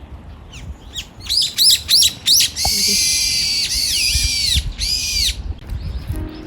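Birds calling loudly: a quick run of chirps, then several long, shrill, drawn-out calls, one of them sliding down in pitch. These are songbirds feeding on persimmons.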